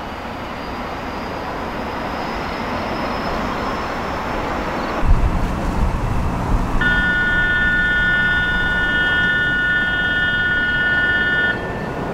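An electric train grows louder as it approaches, then passes close by about five seconds in with a heavy rumble and a few wheel thumps. From about seven seconds in, a steady high multi-note tone sounds over it for nearly five seconds and cuts off abruptly.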